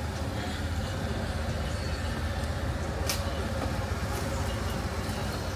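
Steady city street noise: a continuous low rumble of road traffic, with one short sharp click about three seconds in.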